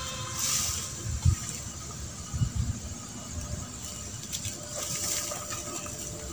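Scuffing footsteps on a steep dry-dirt bank and rustling of dry grass and leaf litter as someone climbs, with a few low thumps about a second in and again a little later.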